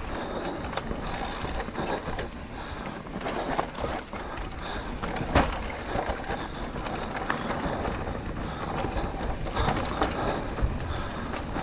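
Trek Rail electric mountain bike descending a rough dirt trail: tyres rumbling over dirt and rock while the frame and chain rattle, with a sharp knock about five seconds in.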